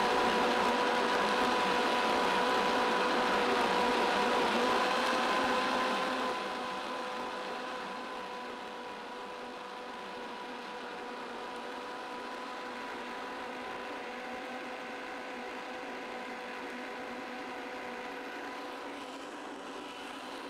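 High-powered countertop blender running steadily with a motor whine, its tamper pushed down into a thick mixture blended with only a little water so it turns creamy. The sound drops in level about six seconds in and runs on at that lower level.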